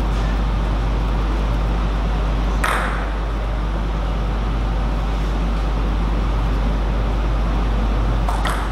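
Steady hum and hiss of background noise, with one sharp click of a table tennis ball about a third of the way in. Near the end, a quick run of clicks as the ball is served: the bat striking the ball and the ball bouncing on the table.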